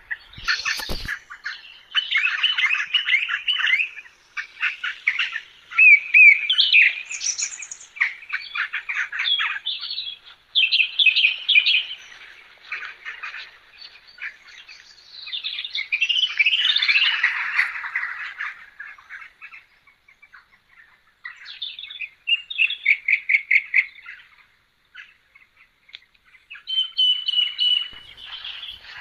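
Birds chirping and chattering in quick runs of high notes, phrase after phrase with a few short pauses.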